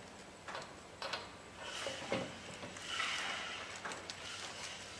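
Metal clicks and knocks of a pressure regulator being handled and turned on a gas-welding cylinder's valve, with a rougher scraping stretch between about two and four seconds in.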